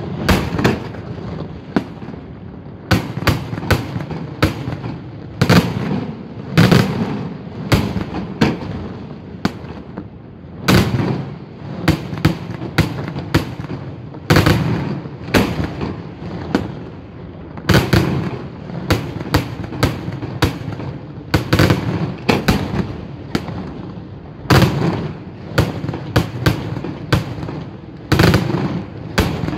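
Daytime fireworks display: aerial shells bursting overhead in a steady barrage of sharp bangs, coming irregularly a few a second, each followed by a lower rumble.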